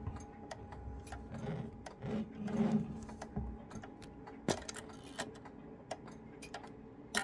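Faint, uneven clicks and ticks from the Howard Miller Lewis wall clock's movement and chime hammers, with a low rumble about two to three seconds in.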